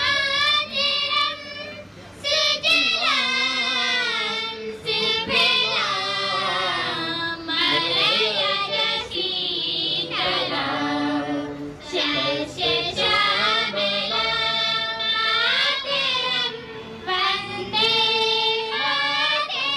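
A group of children singing a song together, in phrases of long held notes with short breaths between them.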